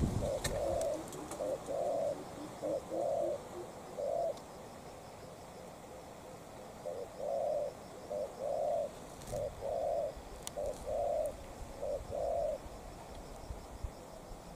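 Spotted dove cooing: a run of short, low coo notes that breaks off about four seconds in and starts again about three seconds later.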